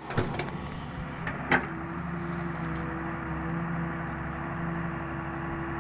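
Daewoo Solar 130 wheeled excavator's diesel engine and hydraulics running steadily as the arm swings and the bucket lowers to dig, a constant hum with a few held tones. Two sharp knocks sound in the first two seconds, the louder one about a second and a half in.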